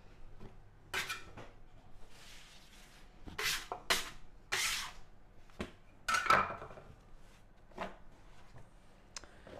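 Sourdough dough being worked on a countertop: a metal bench scraper scraping across the surface and hands rubbing and pressing the dough flat, heard as a series of short separate scrapes.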